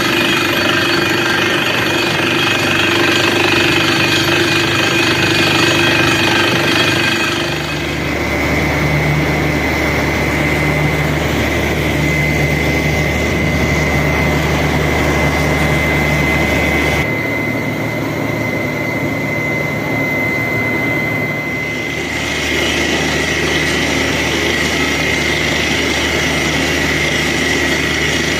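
Borewell drilling rig running continuously: engine hum with a steady high whine over it, the engine note changing a few times as the load shifts.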